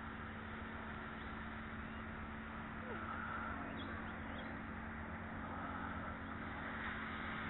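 Steady outdoor background rumble, with a couple of faint bird chirps about four seconds in.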